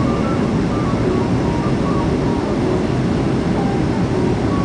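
Steady engine and rushing-air noise inside the cabin of a Boeing 737-400 on approach, heard from a window seat over the wing, with its CFM56-3 turbofans running.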